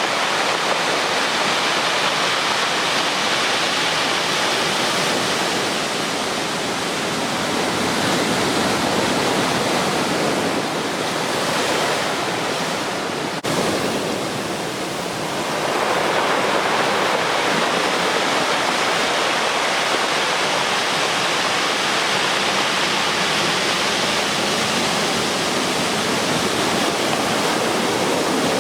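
Ocean surf breaking on a beach: a continuous rushing wash of waves. It eases briefly about halfway through, with a faint click.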